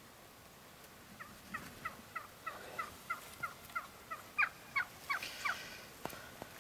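Wild turkey calling: a run of about a dozen short notes, each falling in pitch, about three a second, growing louder toward the end.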